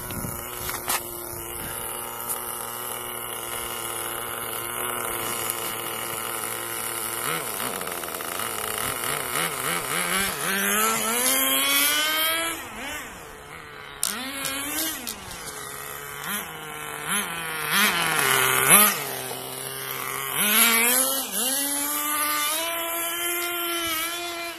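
Small nitro (glow-fuel) engine of a radio-controlled car, running at a steady idle for about seven seconds, then revving up and down again and again as the car accelerates and slows.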